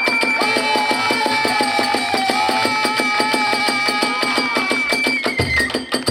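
Kagura hayashi music: a bamboo flute carries a wavering melody over fast, even clashes of small hand cymbals, and deep taiko drum strokes come in near the end.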